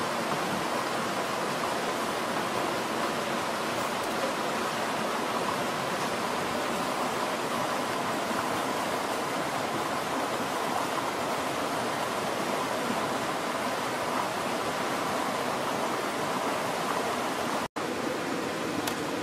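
Steady, even rushing hiss of outdoor ambience with no distinct events. It drops out for an instant near the end.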